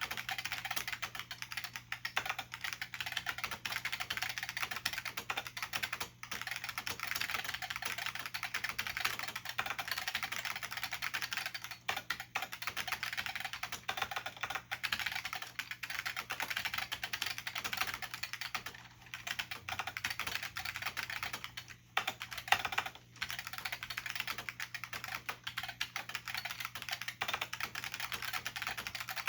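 Continuous typing on an IBM P70 keyboard with Alps plate-spring switches and thin dye-sublimated keycaps: a dense stream of keystroke clicks, broken by a few short pauses.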